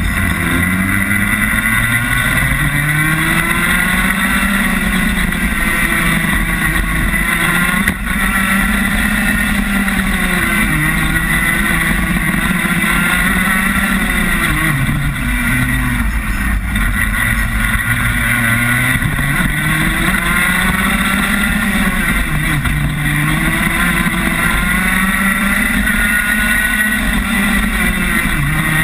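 Rotax Max kart's 125 cc single-cylinder two-stroke engine heard onboard at racing speed. Its pitch climbs as the kart accelerates and drops as it slows, again and again.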